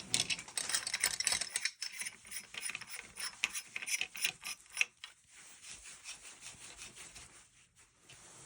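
Threaded aluminum sections of a sectioned walking staff being turned by hand on their threads: rapid clicking and rubbing of metal, fading to fainter rubbing after about five seconds.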